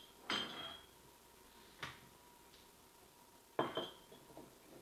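Glassware clinking and knocking on a kitchen countertop while a drink is fixed: three sharp knocks, the first and last ringing briefly.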